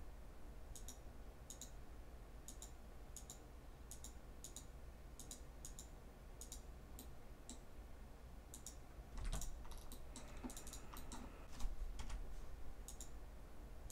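Faint computer mouse clicks, about two a second for several seconds, then a quicker cluster of clicks in the last few seconds.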